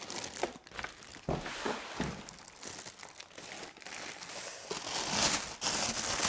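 Packaging being unwrapped by hand, crinkling and rustling in irregular crackles that grow louder and more continuous near the end.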